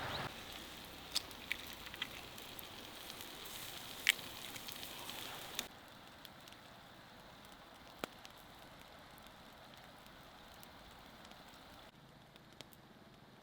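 Wood fire crackling, with a handful of sharp pops over a steady hiss. The hiss drops away suddenly about halfway through, and the loudest pop comes about four seconds in.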